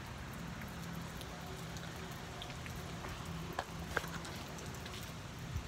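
Faint steady outdoor background hiss with a low hum under it, and a few small clicks and taps about three and a half and four seconds in.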